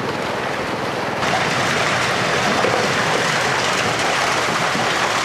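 Water gushing down a fish-stocking slide from a hatchery truck's tank, carrying a mass of live trout, in a steady rush that grows louder about a second in.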